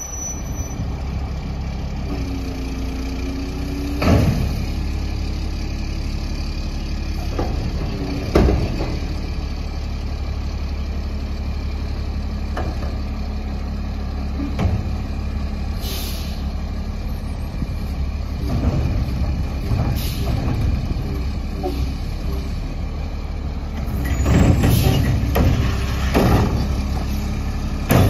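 Mack LE garbage truck with a McNeilus Atlantic front loader and Curotto Can arm: the engine runs at a steady low idle, with a short squeal as the truck stops and sharp air-brake hisses about four and eight seconds in. Near the end there is clattering and knocking as the automated arm grabs a cart and lifts it.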